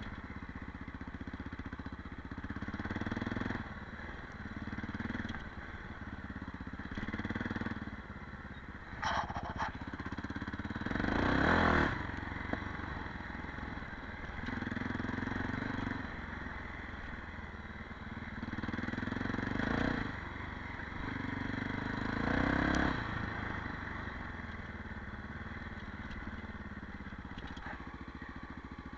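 Honda XL 600 R single-cylinder four-stroke motorcycle engine running on a rough dirt track, its revs rising and falling every few seconds as the throttle is opened and closed. There is a brief loud rush of noise about twelve seconds in.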